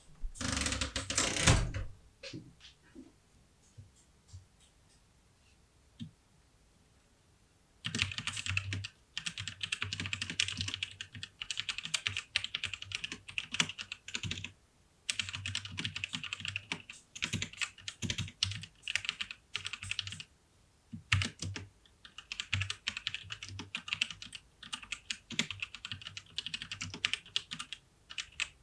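Typing on a Tecware Phantom 104 mechanical keyboard with Outemu Brown tactile switches. A loud, dense clatter in the first two seconds gives way to a few separate keystrokes, then from about eight seconds in to fast, continuous typing in runs broken by short pauses.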